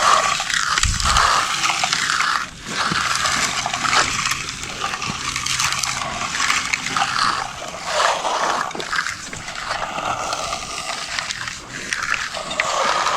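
Wet concrete being worked with hand finishing tools, a continuous wet scraping and sloshing that swells and fades.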